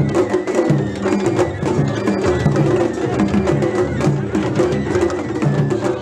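Japanese festival float music (matsuri-bayashi): a large taiko drum beaten in a steady rhythm, with sharp knocking strokes over it.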